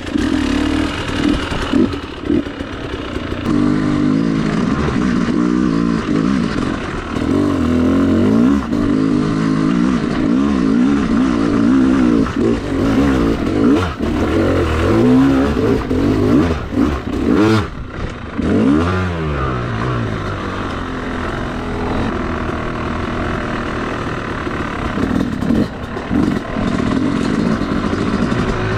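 Two-stroke enduro dirt bike being ridden, its engine revving up and easing off again and again as the rider works the throttle and gears, with a sharp drop and fresh climb in revs a little past halfway.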